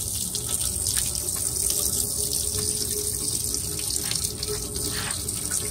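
Water-laden engine oil pouring in a steady stream from a car's oil pan drain hole and splashing into a drain bucket. The pan holds a lot of water, so mostly water rather than oil is running out.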